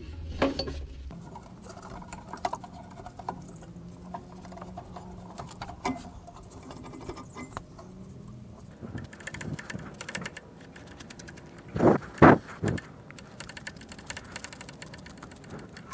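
Gloved hands working a rubber lower radiator hose into place against the thermostat housing: soft rustling and scattered small clicks and knocks, with two short louder pitched sounds about twelve seconds in.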